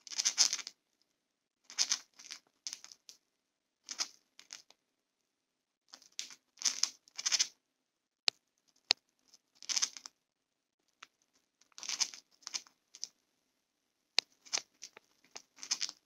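Two cockatiels grinding their beaks: short raspy grating bursts that come irregularly every second or two, with a couple of sharp clicks about halfway through. It is the sound of relaxed, contented birds.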